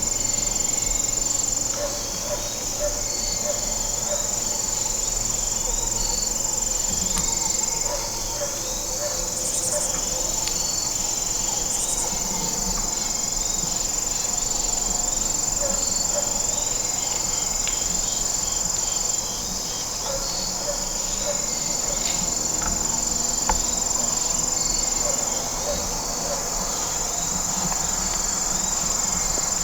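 Chorus of crickets and other insects: a steady high-pitched drone that runs on with brief breaks, over rows of short repeated chirps.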